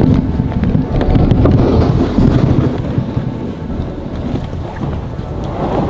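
Wind buffeting the microphone: a loud, low rumble that rises and falls in gusts.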